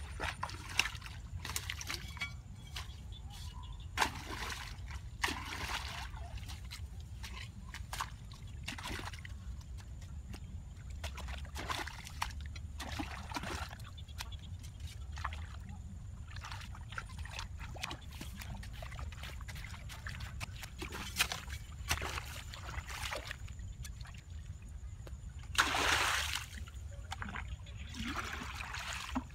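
Water splashing and trickling in short, irregular splashes, with a bigger splash about 26 seconds in, over a steady low rumble.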